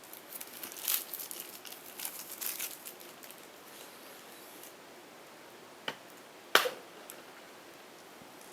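Small handling noises: a run of light clicks and crinkly rustles, then two sharp clicks near the middle, the second one louder.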